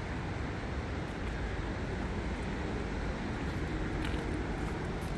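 A steady low rumble of distant background noise, with a faint tick about four seconds in.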